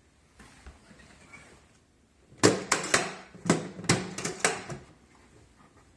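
A quick run of about eight sharp knocks and clacks as the plastic body and lid of a rolling toolbox are handled, starting about two and a half seconds in and lasting about two seconds, after soft rustling.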